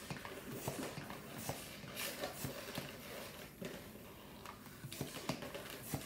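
Latex twisting balloons rubbing and squeaking as they are handled and twisted, with scattered short squeaks and taps.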